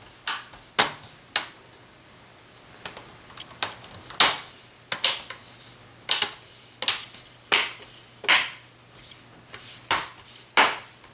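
Plastic screen bezel of an HP ProBook 4440s laptop being pressed onto the lid, its clips snapping into place one after another: a series of sharp clicks at irregular intervals.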